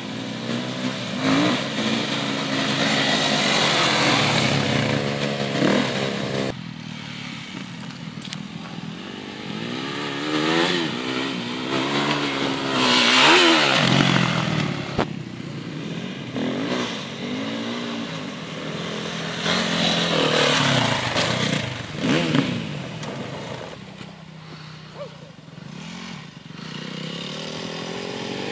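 Dirt bike engine revving up and down again and again as it rides round a gravel track, its pitch rising and falling with each burst of throttle. It is loudest as it passes close about halfway through.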